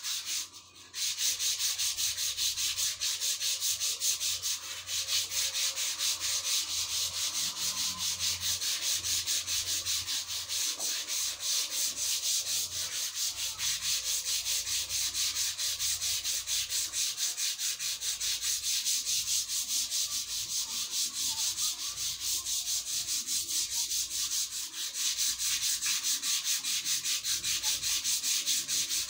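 Hand sanding: sandpaper rubbed back and forth over the curved top of a large white workpiece, in quick, even, scratchy strokes that start about a second in and keep going.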